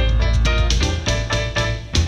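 Music: a song with a drum beat and deep bass under pitched instrument notes.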